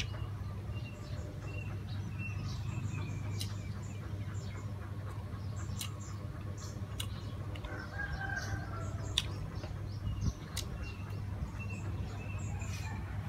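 Someone chewing a mouthful of fried pork and rice, with scattered sharp clicks from the chopsticks, over a steady low hum. A hen clucks in the background about eight seconds in.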